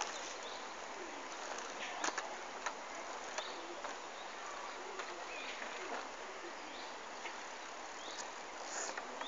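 Quiet outdoor street ambience: a steady hiss with a few faint clicks about two to three and a half seconds in, and scattered faint short sounds in the distance.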